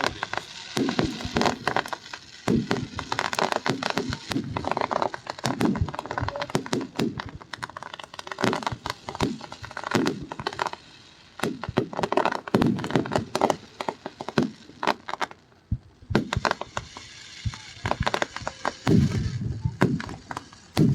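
Aerial fireworks going off: many sharp cracks and crackling pops in quick succession, with people's voices in between.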